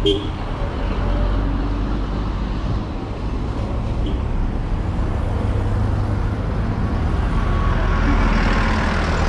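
Street traffic: vehicles running past under a steady low rumble, with a sharp click right at the start.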